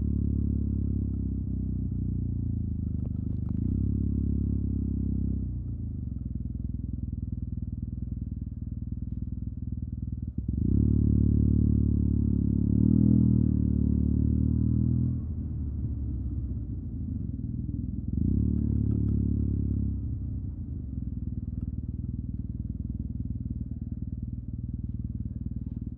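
Yamaha TMAX 560 maxi-scooter's parallel-twin engine through an Akrapovic carbon full exhaust system, under way. The throttle is opened harder three times, and the loudest, longest surge comes about halfway through.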